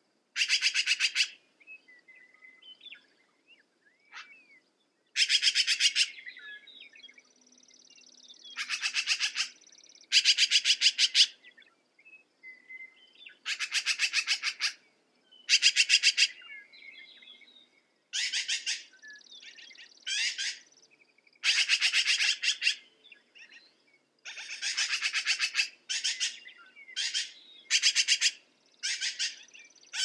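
Black-billed magpie chattering: rapid rattling calls in about fifteen short bursts of under a second each, irregularly spaced, with faint softer chirps between them.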